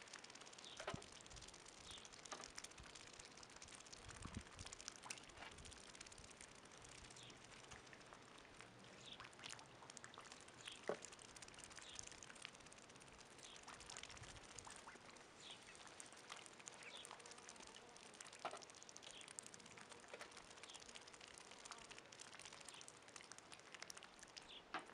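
Faint splashing and pattering of ducks and goslings dabbling their bills in a shallow muddy puddle: scattered small water ticks and slurps throughout.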